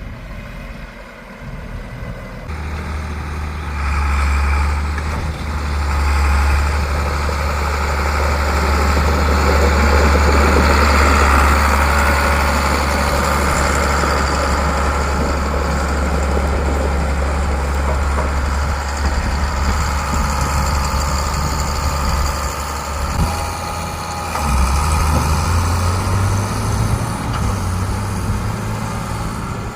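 Engine of heavy farm machinery running steadily, coming in about two seconds in and growing louder, its pitch rising slightly near the end.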